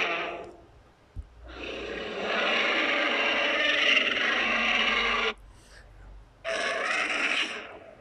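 Custom-made Godzilla roar sound effects: the end of one roar fading away, then a long roar of about four seconds that cuts off sharply, and a shorter roar near the end.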